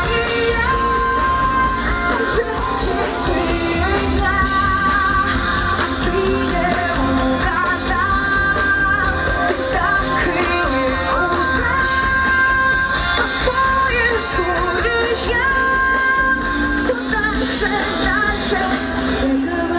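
Live pop-rock band playing through the stage PA: electric guitars, bass and drums under a female singer's held, wavering vocal lines.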